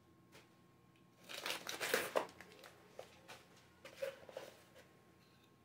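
Cardboard mailing box and paper packing being handled and rummaged through, making crinkling and rustling. A burst lasting about a second and a half starts about a second in, and a shorter one comes near four seconds in.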